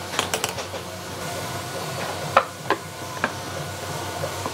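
Wooden pieces knocking and clicking as a wooden clamping jig and a dovetailed wooden box are handled and set against each other: a quick run of light clicks at the start, then three sharp knocks a little past halfway, the first the loudest.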